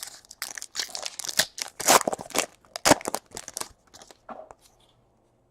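Wrapper of a trading-card pack being torn open and crinkled, with cards handled. There is a dense run of crackling rustles for about three and a half seconds, then a few soft rustles.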